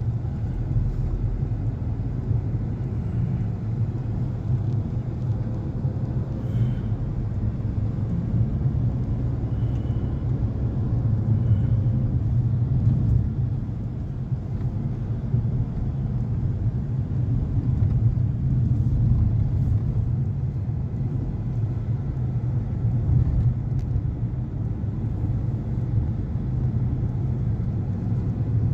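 A car being driven: a steady low rumble of engine and road noise that holds on throughout.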